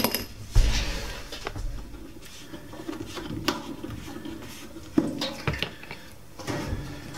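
Handling noise on a workbench: a knock about half a second in as the toy bunny's gear mechanism is set down in a plastic tub, then scattered light clicks and taps of things being moved, and a low thud near the end.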